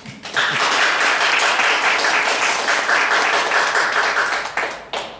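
Audience applauding, many hands clapping at once; it starts about half a second in and dies away near the end.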